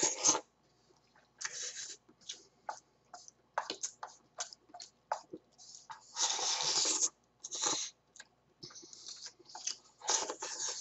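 Slurping hot crab ramen noodles and broth from a bowl, in four or five hissy bursts of up to about a second, with chewing and short clicks between them.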